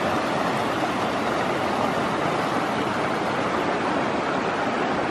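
A fast, shallow mountain creek rushing over rocks and boulders: a steady, even rush of water.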